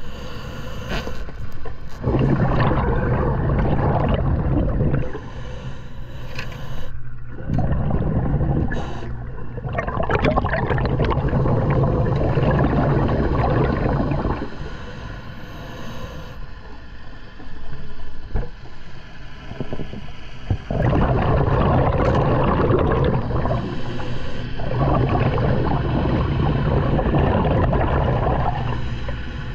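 Scuba diver breathing through a regulator underwater: several long rushes of exhaled bubbles, each lasting a few seconds, with quieter gaps for the inhale between them.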